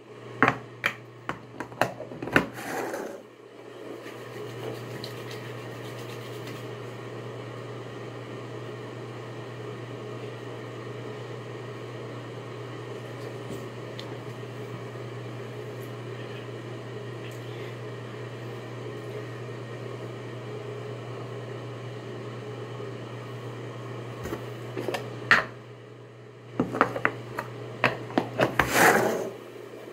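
Plastic hair-gel jar handled with sharp clicks and knocks as its lid comes off, then a steady low mechanical hum for most of the stretch. Near the end come more clicks and knocks as the lid goes back on the jar.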